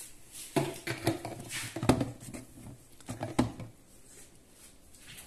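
Irregular light knocks and taps of kitchen things being handled around a sink, the sharpest about two seconds in, then quieter.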